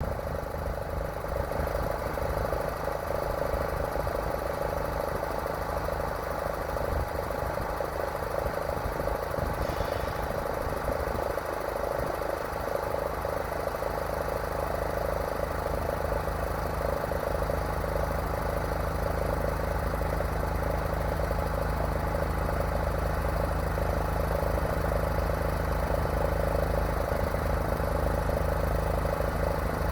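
A motor vehicle engine idling steadily, with a constant hum. A short, high-pitched sound comes once, about ten seconds in.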